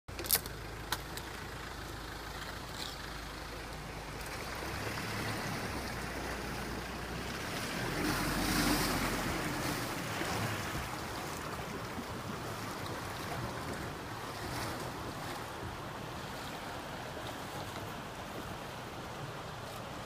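Ford Ranger pickup wading into a river: a low engine hum, then water splashing and washing around the wheels, loudest about eight to nine seconds in, over a steady background rush. Two sharp clicks in the first second.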